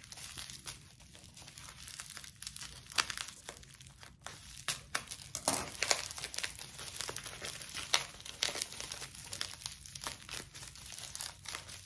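Plastic bubble wrap crinkling in dense, irregular crackles as it is unwrapped by hand.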